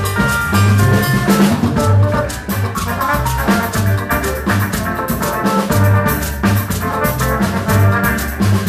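Afro-Latin instrumental band playing: drum kit and hand percussion keep a steady groove under a repeating bass line, with melody instruments sounding above.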